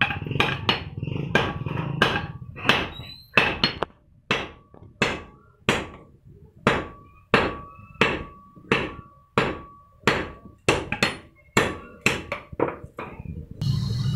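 Hand forging in a blacksmith's shop: hammers beating red-hot iron held with tongs on an anvil, each blow ringing briefly. For the first few seconds a sledgehammer and a hand hammer strike in quick turns. After that a single hand hammer keeps a steady pace of about one and a half blows a second. The hammering stops near the end, and a steady low hum takes over.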